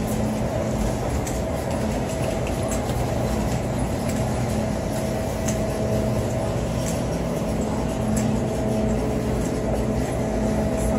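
Steady city street background: a low rumble with a constant hum, with faint ticks of footsteps on the pavement.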